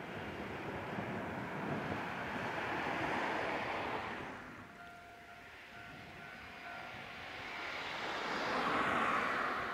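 A car passing on the road, its tyre and road noise swelling and fading over the first four seconds or so. Then a quieter spell with a faint steady whine, and a second rise of rolling noise toward the end as a Moha 880 tram approaches.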